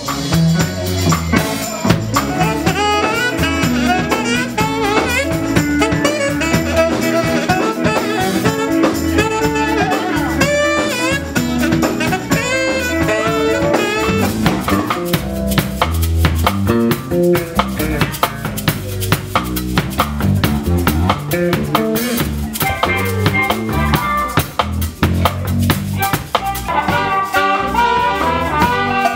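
Live band playing an instrumental break: drum kit and bass keep a steady groove while a saxophone plays over it. Near the end a harmonica played into a vocal mic joins.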